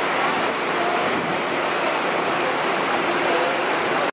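Steady din of a crowded restaurant dining room: many indistinct voices merging with room noise into a dense wash, with no single voice standing out.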